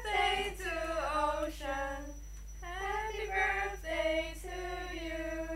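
A small group of teenage girls singing a birthday song together, unaccompanied, in long held notes.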